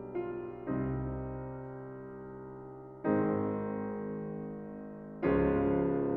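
Background music: slow, sustained piano or electric-piano chords, a new chord struck about every two seconds and left to fade.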